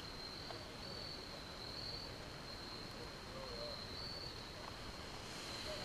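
Crickets trilling steadily at one high pitch, the sound swelling and easing a little every second or so.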